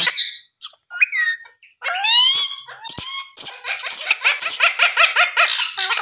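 Indian ringneck parrot (rose-ringed parakeet) calling and chattering in quick, high-pitched sweeping notes. A few short calls in the first two seconds, then a dense, rapid run of chatter from about three and a half seconds on.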